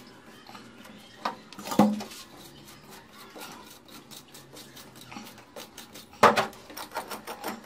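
A wooden tool scraping and tapping wet cement mortar along the joint between a stainless-steel sink and the wall, with small scratchy clicks throughout. Sharp knocks come about a second and a half in and a louder one a little after six seconds.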